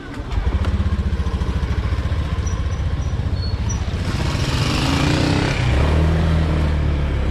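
Kymco Like 150i scooter's single-cylinder engine running as the scooter pulls away; about four seconds in the throttle opens, the engine gets louder and a rising rush of air noise comes in as it picks up speed.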